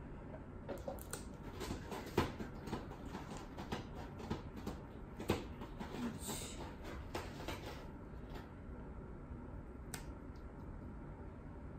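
Pet nail clipper snipping a cat's claws: a series of small, crisp clicks and knocks with light handling rustle, two of the clicks louder than the rest, about two and about five seconds in.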